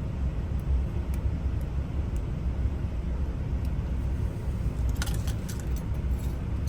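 Steady low rumble with a few light metallic clicks, then a short cluster of clinks about five seconds in, as an ignition lock cylinder is handled and worked apart.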